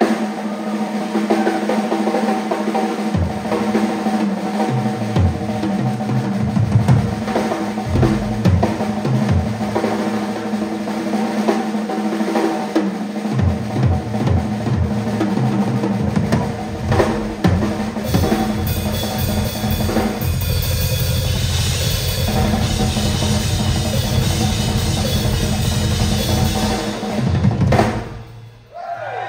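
Live drum solo on a Tama acoustic drum kit: rapid snare and tom rolls over bass drum, the kick drum playing a dense continuous run from about halfway through and cymbals washing in more strongly in the second half. The playing drops away for a moment near the end before picking up again.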